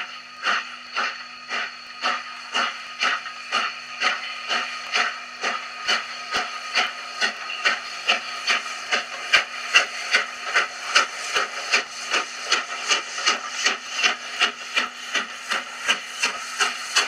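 Steam locomotive exhaust beats: a regular chuffing of about two beats a second that quickens to nearly three a second as the train gathers speed.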